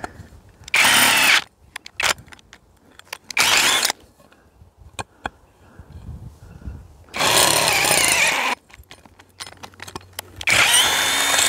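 Cordless drill running in four short bursts, with small clicks and knocks from handling between them.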